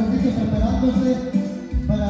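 Music for a couples' dance, with a melody line over a low bass beat that lands about once a second.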